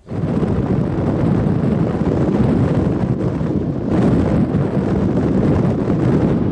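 Wind buffeting the microphone: a loud, rumbling, gusting noise that starts abruptly and keeps going, heaviest in the low end.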